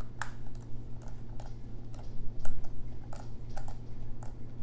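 Precision screwdriver working the small bottom screws of an iPhone X, a run of light, irregular clicks and ticks of metal on the phone's screws and frame.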